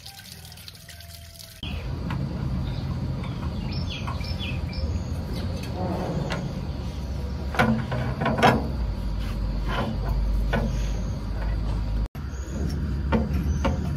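A small motor running steadily with irregular knocks and clatter. It starts suddenly about a second and a half in.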